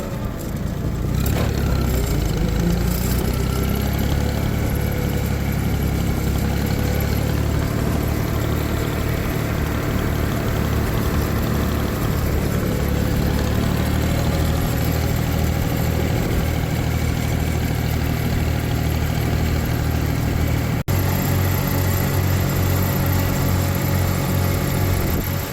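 Small farm tractor's engine running steadily under load. About 21 s in the sound breaks off for an instant and comes back as a lower, pulsing throb.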